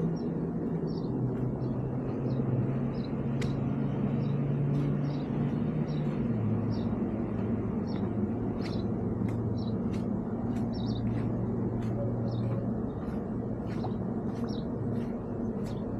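Steady low engine drone from a nearby machine or vehicle, dropping slightly in pitch about six seconds in, with a scatter of short high chirps or ticks throughout.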